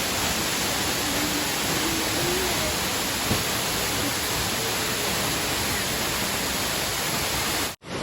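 Steady rush of a waterfall's falling water, loud and even, cutting off suddenly near the end.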